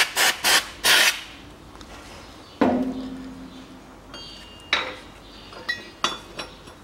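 Three quick hissing spurts of silicone lubricant from an aerosol can, sprayed onto an air-conditioning compressor pulley and its new bearing, in the first second. Then a single metal clank with a short ringing tone about two and a half seconds in, followed by a few lighter metallic clinks as the steel pulley is handled and set on a shop press plate.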